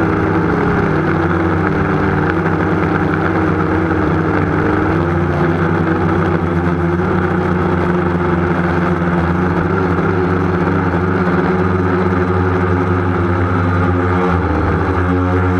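Motors and propellers of a small remote-controlled aircraft running steadily, heard close up from its onboard camera, the pitch wavering slightly as the throttle changes. Near the end the tone shifts.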